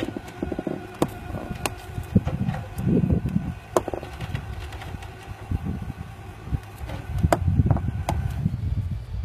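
Tow truck engine running with a faint steady whine, under irregular low rumbling from wind on the microphone and a few sharp knocks.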